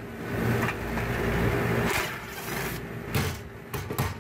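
Steady low mechanical hum from rooftop HVAC equipment, with several short rushes of noise. The compressors are not running, a sign the package unit is not cooling.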